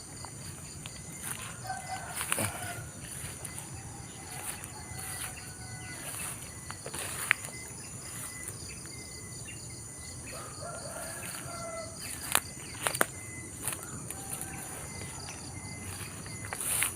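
Rural outdoor ambience: a steady high insect drone with pulsing chirps over it, short repeated birdcalls, and a few sharp clicks or snaps.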